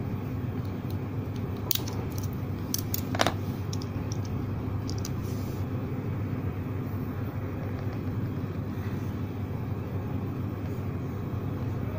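Steady low background hum, with a handful of small sharp clicks and scrapes between about two and five seconds in, the loudest about three seconds in, as a thin metal pick pries at the plastic shell of a Redmi AirDots wireless earbud.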